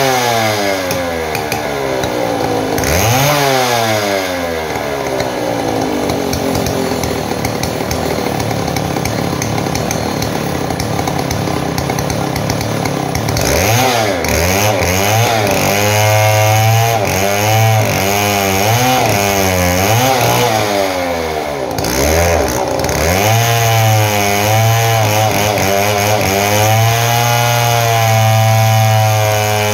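Stihl 070 chainsaw's large two-stroke engine running, its revs rising and falling over and over while a screwdriver works at the saw. This is a test run after a repair for loss of power, sputtering and backfiring.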